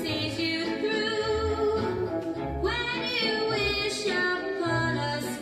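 Recorded pop song: a woman singing long, held notes over instrumental backing with a bass line.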